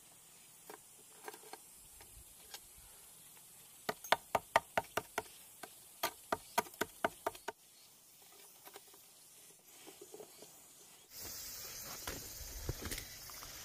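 Two quick runs of light hammer taps on steel rebar, about six or seven strikes a second, each run lasting just over a second. Near the end a steady background hiss comes in.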